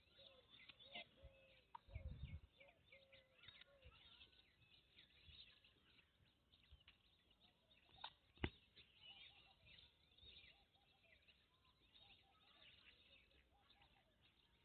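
Near silence with faint bird chirps. There is a low thump about two seconds in and a single sharp click a little past eight seconds.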